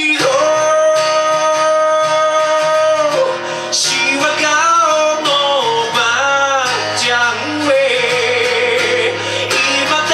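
Live male vocal singing with an acoustic guitar strummed as accompaniment. The voice holds one long note for about the first three seconds, then moves into shorter phrases.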